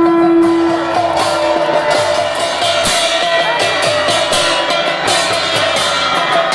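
Live festival music, loud, with drums and cymbals beating densely; a single strong held note sounds for about the first second and a half.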